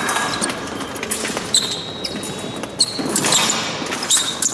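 Épée fencers moving on the piste: thuds of feet stamping and shuffling, shoe squeaks, and short high metallic clicks, several of them about 1.5, 3 and 4 seconds in.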